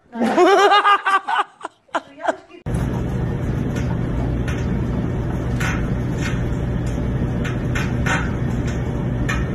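A high-pitched voice in a quick run of short repeated notes, then a few sharp clicks. It breaks off suddenly into a steady low hum with scattered light knocks.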